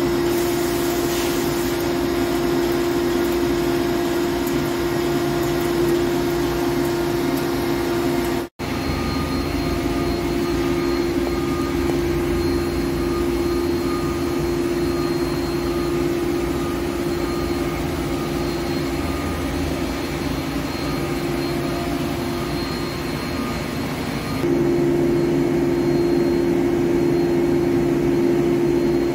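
Heavy CNC lathe (Hankook PROTEC-9NC) running: a steady machine noise with a held hum. It drops out for a moment about eight seconds in and is slightly louder from near the end.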